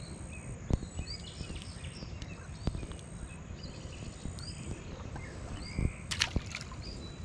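Small birds chirping and calling over and over against a steady outdoor background. A few sharp knocks and a short rustle about six seconds in come from hands handling fishing tackle close to the microphone.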